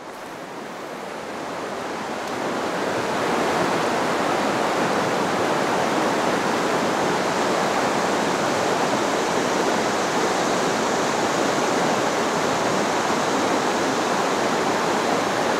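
River water rushing through a shallow riffle: a steady rush that grows louder over the first three seconds and then holds.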